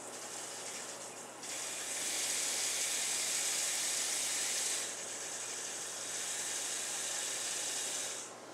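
Kitchen faucet running water into a plastic 2-litre soda bottle, filling it. The flow gets stronger about a second and a half in, eases a little around five seconds, and shuts off near the end.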